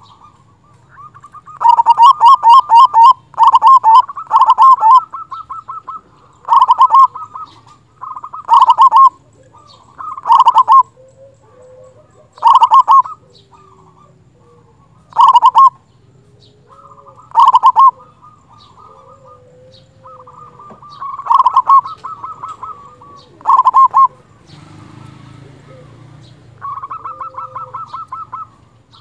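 Zebra dove (perkutut) singing its loud rolling coo: about a dozen quick stuttering phrases, each a fast run of clipped notes, repeated roughly every two seconds. A few phrases are softer.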